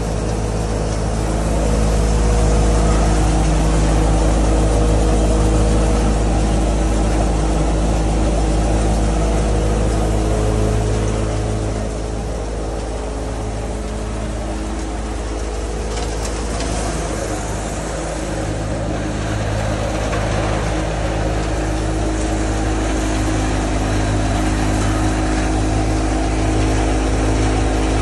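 Tractor-driven multicrop thresher running under load: a steady drone from the tractor engine and the thresher's drum and blower, a little quieter in the middle.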